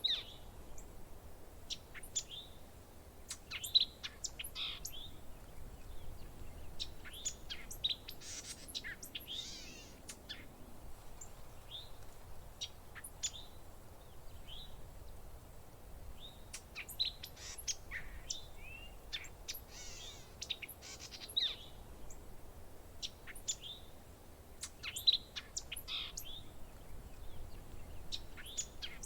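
Parrots chirping and calling: many short, scattered chirps and sharp squeaks, some gliding up or down in pitch.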